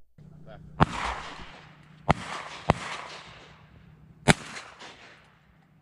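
Four shotgun shots, about a second in, at two seconds, just under three seconds and just over four seconds. The first two each trail off in a long fading echo.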